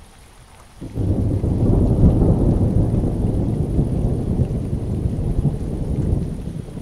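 Rain falling steadily, then a long, loud roll of thunder that starts suddenly about a second in and continues, easing a little near the end.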